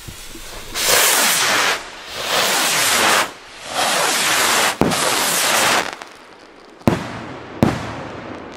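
Large firework rockets going up one after another with long loud hissing whooshes, then bursting with sharp bangs: one about five seconds in and two more near the end.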